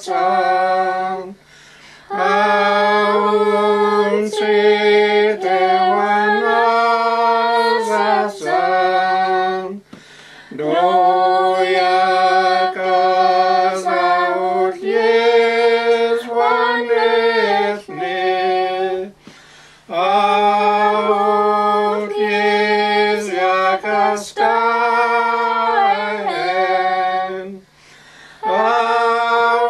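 A small group of unaccompanied voices singing a Dakelh (Carrier) hymn, women's voices most prominent. The singing comes in long held phrases with short breaks for breath every eight or nine seconds.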